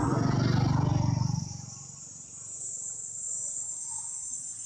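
Steady high-pitched insect drone in the forest. Over it, a loud low rumble is the loudest sound at first and fades out about a second and a half in.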